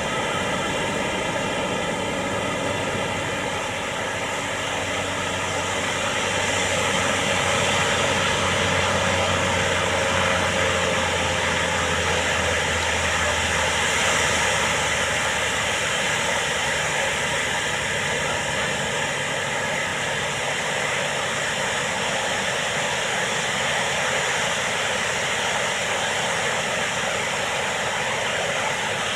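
Steady wash of ocean surf breaking on a beach, with a low drone underneath through the first half.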